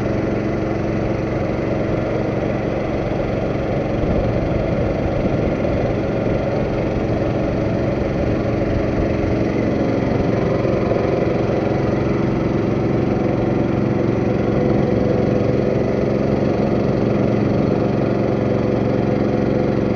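Boat engine running steadily at an even speed while cruising.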